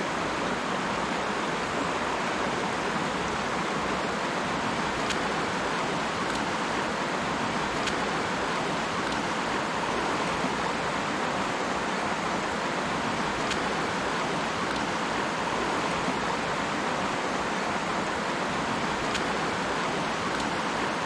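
Shallow rocky trout stream rushing steadily over a riffle and small rapids: an even, unbroken water noise.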